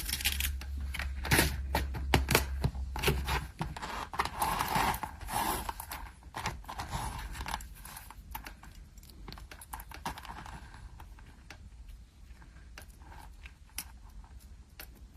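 Small metal clicks and light jingling of thin gold chains and jump rings being handled with jewelry pliers, busy for the first six seconds and then thinning to scattered ticks. A low hum runs under the first three and a half seconds.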